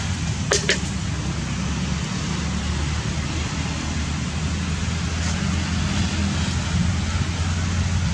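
Small motorbike engine running steadily as a low, even hum, with two sharp clicks about half a second in.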